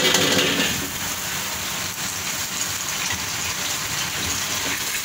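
Pineapple-chicken sauce boiling hard in a large wok over a high gas flame, a steady bubbling hiss. In the first second the vegetables are tipped in from a bowl, a short, louder splash.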